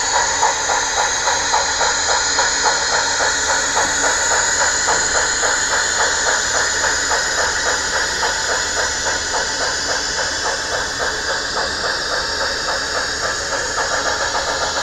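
Model steam locomotive's sound decoder playing steady, rhythmic exhaust chuffs, about four a second, over a continuous hiss, from the locomotive's small onboard speaker.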